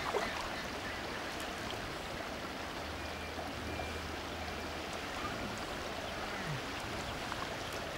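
Steady swishing of water as a person wades waist-deep through a lake.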